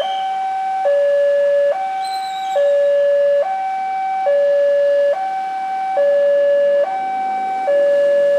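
Railway level-crossing warning alarm sounding its new two-tone signal: a loud high-low electronic tone alternating steadily, each note lasting just under a second, warning that a train is approaching.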